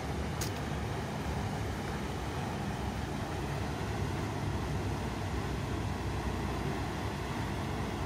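Floodwater from the No. 18 channel rushing over the intake step into the inflow of the underground flood-discharge channel, a steady rush with a deep rumble, the sign that the intake is still taking in water. A brief click about half a second in.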